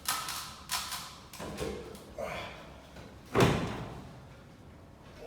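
A series of irregular knocks and thuds, the loudest about three and a half seconds in, as materials are handled and set in place to build a makeshift ladder.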